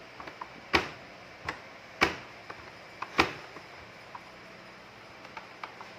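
Sharp clicks and knocks from handling a Samsung front-load washing machine: three or four loud ones about a second apart, with fainter ticks between them.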